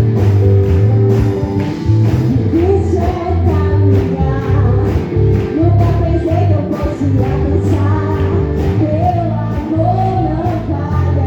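Worship song played by a band with a steady drum beat and a sustained bass line, a voice singing the melody over it.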